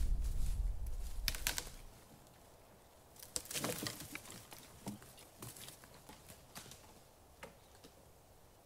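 A deep rumble dies away over the first two seconds. Then come quiet, scattered cracks and rustles, a short crackling patch among them, as of movement through a forest.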